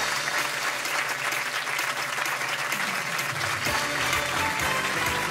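A studio audience applauding steadily over closing theme music.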